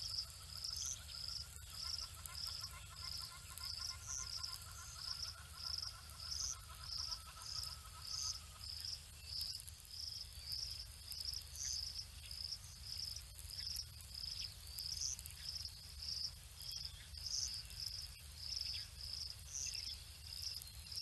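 Cricket chirping in a steady rhythm, about two short, high chirps a second. A fainter, lower steady trill sounds underneath and stops about eight seconds in.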